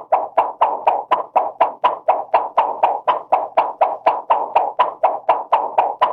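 Cartoon twirling swish sound effect: rapid, evenly spaced swishes, about four to five a second, each starting sharply and trailing off.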